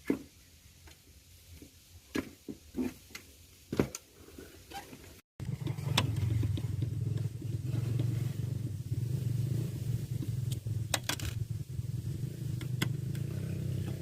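A few light clicks and knocks, then, after an abrupt cut, a motor runs with a steady low hum and a few sharp clicks over it.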